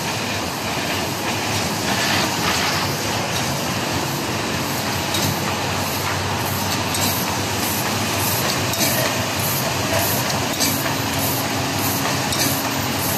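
FHS-1050 hot and cold laminating machine running: a steady mechanical clatter, with light clicks repeating at a regular pace as sheets feed through.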